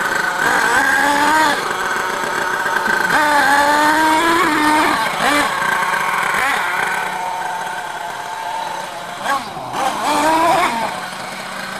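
Small nitro (glow-fuel) engine of a radio-controlled MGT monster truck, revving up and down as it is driven. Its high buzz rises and falls several times, with a couple of short quick blips near the end.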